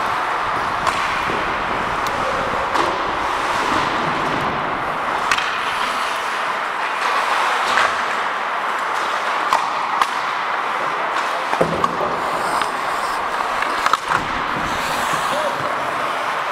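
Ice hockey play heard up close: steady scraping of skate blades on the ice, with sharp clacks of sticks and puck scattered throughout.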